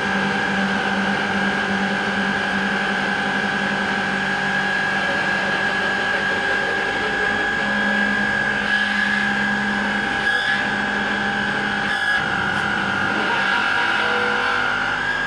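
Live electronic noise music: a dense, steady wall of noise with a high whining tone held throughout over a lower drone that shifts in pitch a couple of times.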